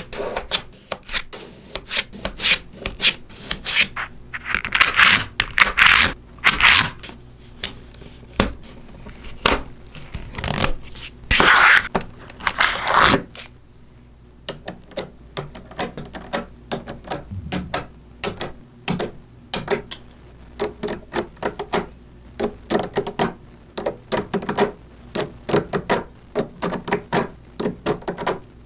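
Small magnetic balls clicking as they snap onto one another, in quick irregular clicks. There are a few longer rattling scrapes as clusters of balls are slid and pulled together, once about five seconds in and again near the middle.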